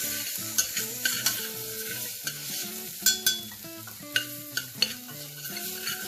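Onions and green chili-garlic-ginger paste sizzling in hot oil and ghee in a pressure cooker while being stirred, with a spatula scraping and knocking against the pot several times.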